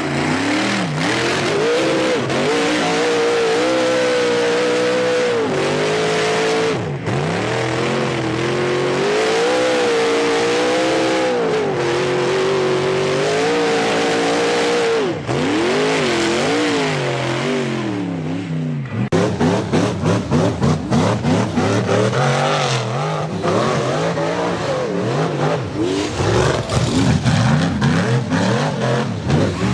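Side-by-side UTV engine revving hard, its pitch rising and falling again and again. About two-thirds of the way through, the sound changes abruptly to a choppier engine note that wavers quickly, with pulsing loudness.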